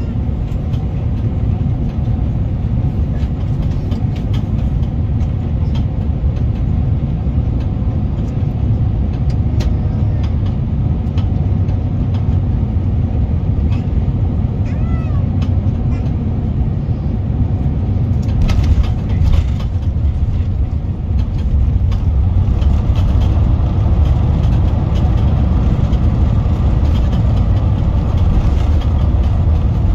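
Steady low rumble of an Airbus A350's Rolls-Royce Trent XWB engines and airflow heard inside the cabin, with scattered light clicks and rattles. The noise grows a little about two-thirds of the way through.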